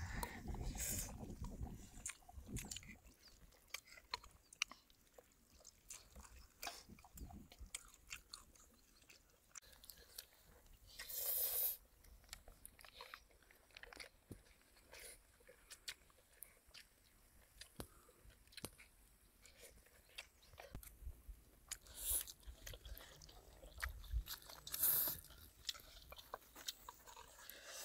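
A person chewing and biting a meal of noodles and seafood close to the microphone: many small wet clicks and crunches, with two louder short noisy bursts, one near the middle and one near the end.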